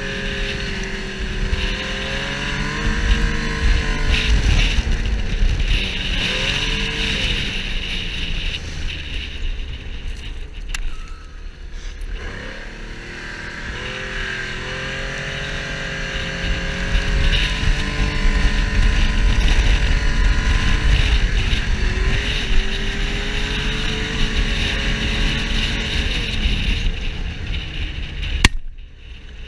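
Snowmobile engine running hard while driving, its pitch rising and falling as the throttle changes, over a heavy low rumble.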